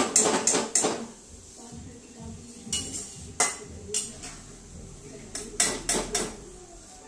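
Steel ladle clinking and scraping against a steel kadai while lifting deep-fried paneer out of the oil. There is a quick run of clinks at the start, then single strikes about a second apart, and another run near the end.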